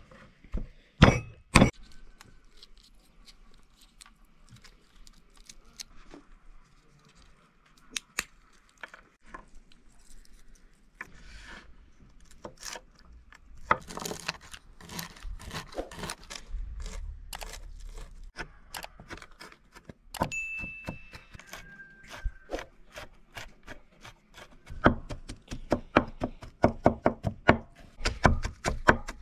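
Scattered knocks and thunks of food preparation. Near the end comes a fast run of strikes, about three or four a second, like chopping on a board.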